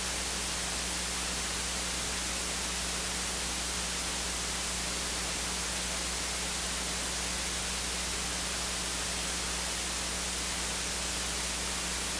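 Steady hiss with a low electrical hum underneath: the recording's own noise floor, with no other sound.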